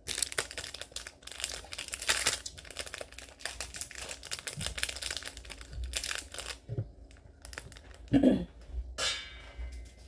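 A large plastic drinking bottle crackles as it is handled and drunk from close to the microphone. About eight seconds in it is set down with a thump, followed by a short scrape.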